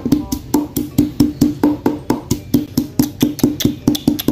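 Wooden pestle pounding chili peppers in a wooden mortar: a steady run of knocks, about four to five a second.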